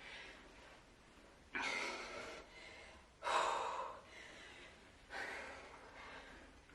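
A woman's heavy breathing under exertion: three forceful, hissing exhales, each sudden and fading, about every second and a half to two seconds.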